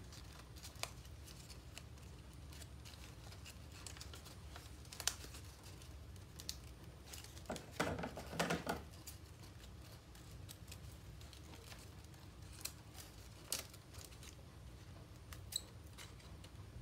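Folded origami paper rustling and crinkling as it is handled and shaped, with scattered light clicks and a louder bout of rustling about halfway through.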